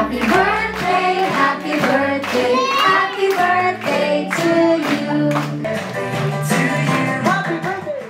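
Voices, children's among them, singing a party song over a music backing track, with hand claps in time; it cuts off suddenly at the end.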